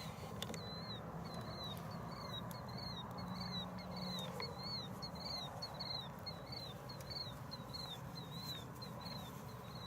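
A small animal calling in a steady series of short, high chirps, about three a second, over a faint low hum.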